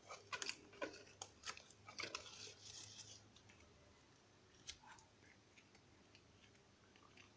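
Brown slime being pushed into a container: faint sticky clicks and squelches through the first three seconds, then near silence.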